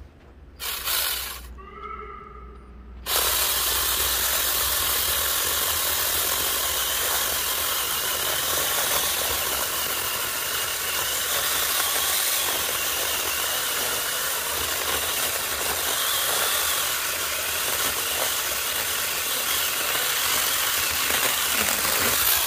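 Zeeksaw battery-powered mini chainsaw with a 6-inch bar cutting through a 5-inch-thick tree. After a few short sounds in the first three seconds, the saw runs steadily under load for about twenty seconds and stops at the end. It throws big chunks as it goes, the sign of a sharp chain.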